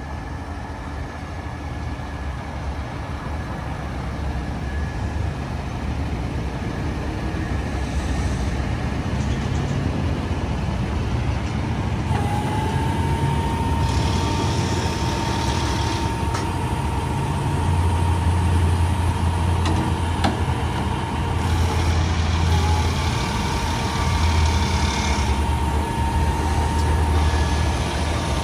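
Diesel engine of an International HV607 roll-off truck running while its Galfab hydraulic hoist raises the roll-off frame. The engine grows louder, and a steady high whine comes in about twelve seconds in and holds.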